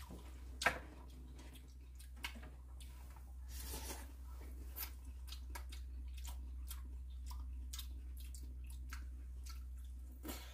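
People eating pumpkin porridge with chopsticks: scattered light clicks of chopsticks against the bowls, the sharpest about a second in, with soft chewing, over a steady low hum.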